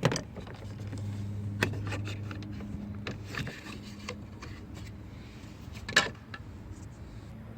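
Sharp clicks and light scraping of parts and tools being handled on a car's rear door, the loudest click about six seconds in. A low steady hum runs for about three seconds, starting about half a second in.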